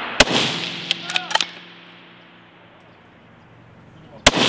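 Two shots from a scoped precision rifle about four seconds apart, each with an echo rolling away. About a second after the first shot come a few quick metallic clicks as the bolt is cycled for the next round.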